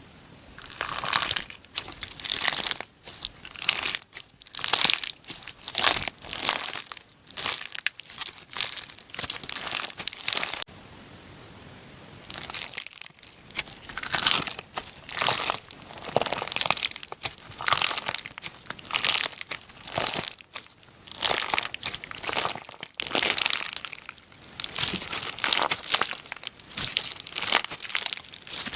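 Slime packed with charms being squeezed and pressed by hand, making repeated squishes full of small crackles, about one or two a second. There is a pause of about two seconds just before the middle.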